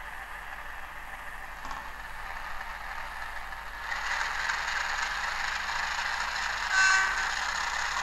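Sound decoder in a Dapol N gauge Class 56 model locomotive playing its diesel engine sound through the small on-board speaker, getting louder about four seconds in. A short horn note sounds near the end.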